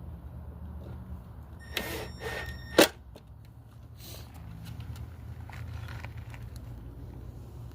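Hands working a tail light assembly: a short plastic clatter with a brief beep-like tone, then one sharp click just before three seconds in, over a steady low rumble.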